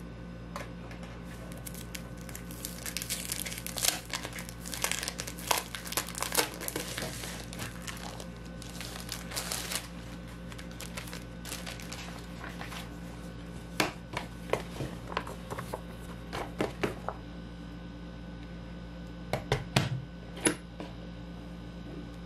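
Crinkling and crackling of something being handled, thick and irregular for several seconds, then thinning to scattered sharp clicks, over a steady low hum.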